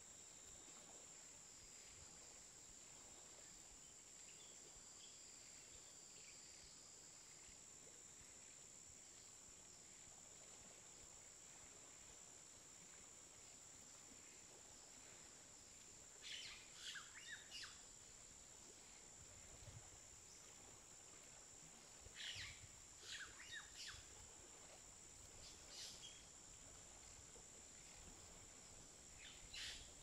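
Faint outdoor ambience: a steady high-pitched insect buzz, with birds chirping in a few short bursts during the second half.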